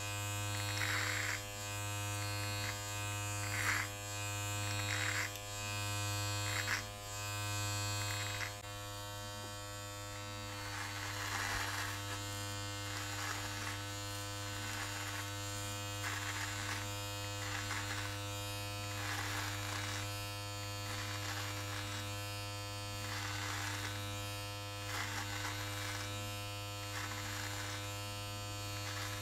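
Electric body-hair trimmer buzzing steadily as it is run through a beard in short repeated passes. Each pass adds a brief rasp of the blades cutting hair, about one every second and a half.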